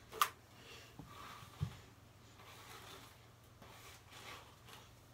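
Faint, soft rustling of a paddle hairbrush drawn through long hair in repeated strokes, with a sharp click about a quarter second in and a soft thump about a second and a half in.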